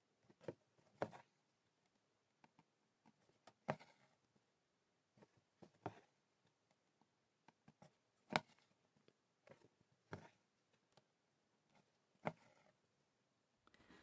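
Faint ticks and short scratchy pulls of an embroidery needle piercing fabric and floss being drawn through, one every second or two.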